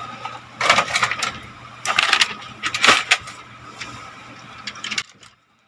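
Packaging being handled: a few short bursts of rustling and scraping over a faint steady hum. It all cuts out abruptly near the end.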